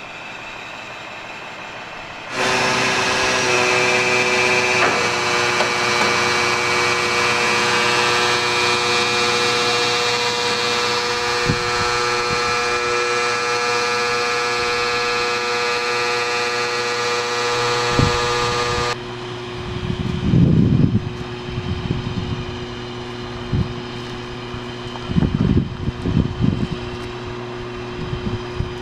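Truck-mounted Gardner Denver blower running under load, pushing cement through the fill line between dry bulk trailers: a loud, steady whine of several tones that starts abruptly and shifts slightly a couple of seconds later. In the last third it gives way to a quieter steady hum with bursts of low rumble.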